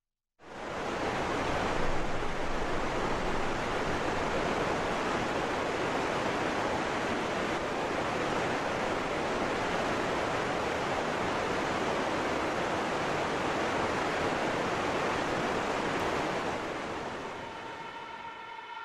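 A loud, steady rushing noise, like surf or wind, starts suddenly and holds even before fading near the end. As it fades, a held set of steady tones swells in, like a siren starting up.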